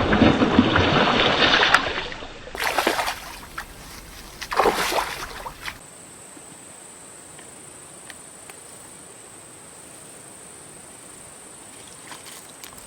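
Water splashing and sloshing loudly for about two seconds, then two short splashes, followed by a faint steady hiss.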